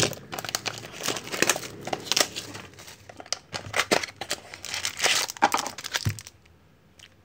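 Wrapper of a Panini Treble soccer trading card pack being torn open and crinkled by hand: a busy run of crackles and rips that dies away about six seconds in.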